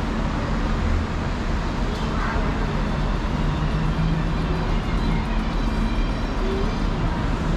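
Steady city street traffic: a continuous wash of road noise with the low hum of engines running, and faint passing voices now and then.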